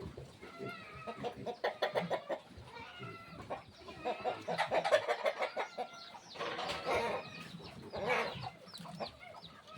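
Chickens clucking, a run of quick clucks and short calls, loudest about five and seven seconds in.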